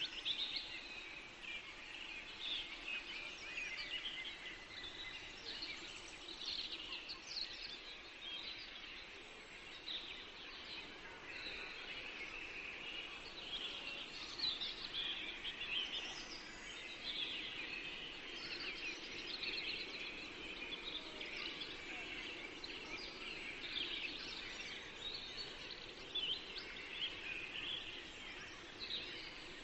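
Many small birds chirping and singing at once, a continuous busy chorus of short high calls over a steady low background noise.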